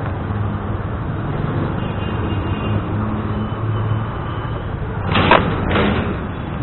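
Honda Dio scooter's single-cylinder engine running steadily at low speed, with road noise. About five seconds in come two short clattering thumps, half a second apart, as the scooter's wheels go over a bump.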